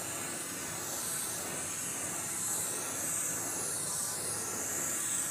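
Long-wand propane torch burning with a steady hiss as its flame is swept over freshly poured epoxy to warm it and pop surface air bubbles.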